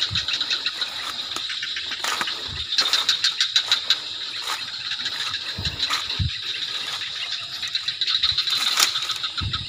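Night insects such as crickets chirring steadily in a high pitch, with a fast pulsing call that swells twice, plus a few low thumps.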